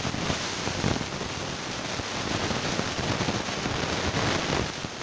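Close handling noise: fingers and small plastic cups rustling and crackling right at the phone's microphone, a continuous crackle full of small clicks.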